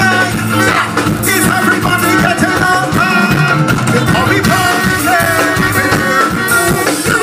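Live soca music played loud through a stage sound system: a singer over a band with a steady dance beat.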